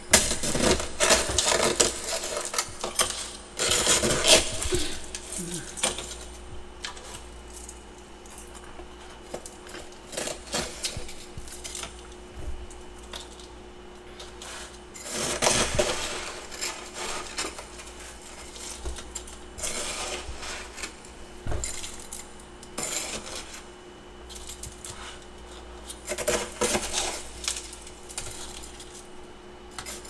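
Metal scraper chipping and scraping built-up freezer frost in irregular bursts, with metallic clinks as the blade knocks against the bowl. The bursts are heaviest in the first few seconds and come again about halfway and near the end.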